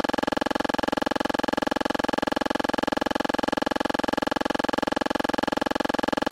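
A steady electronic buzzing tone, one unchanging pitch that pulses rapidly and evenly.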